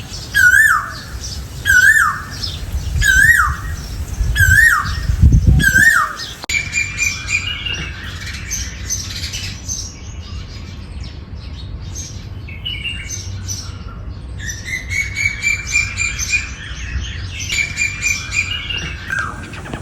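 Asian koel calling: a swooping call repeated about once a second, six times. Then, after an abrupt change, a fast run of shrill chattering notes.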